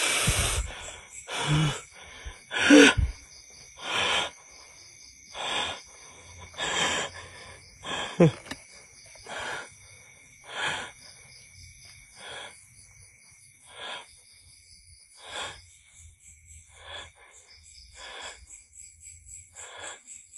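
A person breathing heavily close to the microphone, one rasping breath about every second and a half, growing fainter as it goes on.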